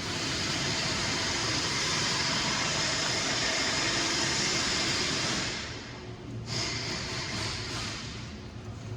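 A steady hiss that fades out about five and a half seconds in, then a shorter, weaker hiss.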